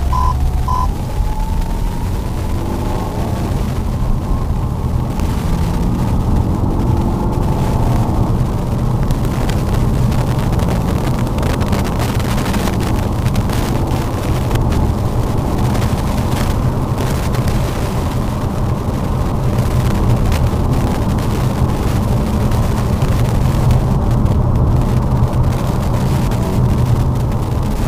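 Lada Vesta driving on a snowy road: steady low rumble of the engine and tyres, with the engine note rising as the car speeds up over the first several seconds. A few short, evenly spaced electronic beeps end within the first second.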